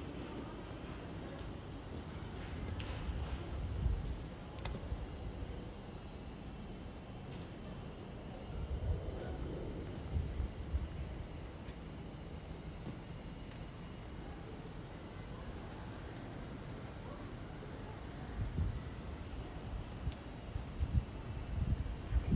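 Steady high-pitched chorus of insects, with occasional low rumbles.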